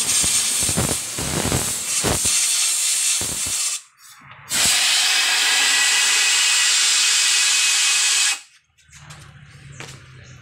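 Compressed air hissing from an air blow gun: uneven blasts for the first few seconds, a short break, then one steady blast of about four seconds that cuts off suddenly. A quieter low steady hum follows near the end.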